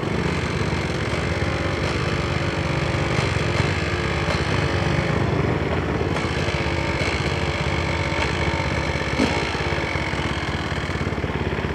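KTM 250 EXC two-stroke dirt bike engine running while riding, its pitch rising and falling with the throttle. A brief knock about nine seconds in.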